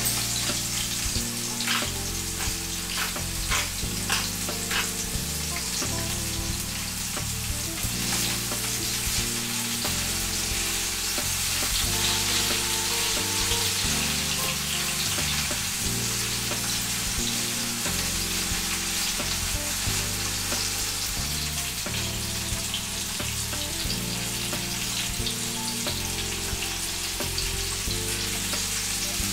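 Vegetables frying in oil in a pan, a steady sizzle, with a run of light clicks during the first several seconds.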